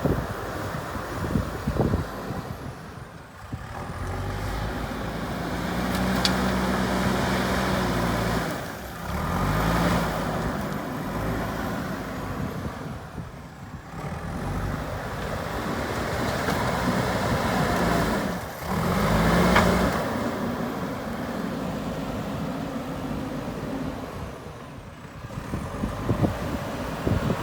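Diesel engine of a JCB 3DX backhoe loader running as the machine works, its note rising and falling several times, loudest twice, about a quarter and two thirds of the way in.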